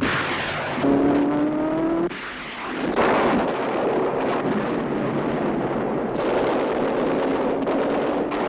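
Wartime battle sound effects of engines. An engine drones with a slowly rising pitch and cuts off about two seconds in. About three seconds in, a sudden loud rush of engine noise starts and holds, with a pitch that slowly rises again near the end.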